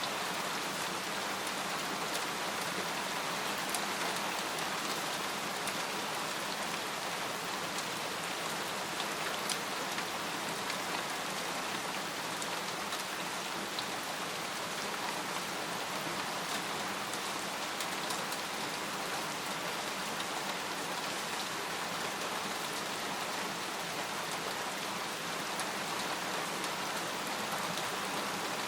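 Steady rain falling on a tent, with scattered individual drops ticking sharply on the fabric.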